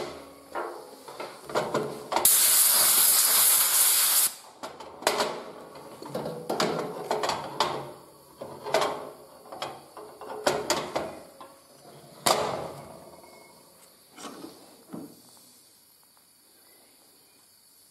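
Metal knocks and clinks of a steel permanent casting mold being handled, opened and clamped shut, with loose zinc castings clattering on the steel table. About two seconds in comes a steady hiss lasting about two seconds.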